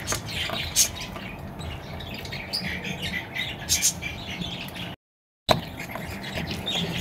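A dog eating dry kibble from a stainless steel bowl: irregular crisp crunching and clicks of kibble against the metal, with the sound cutting out for half a second about five seconds in.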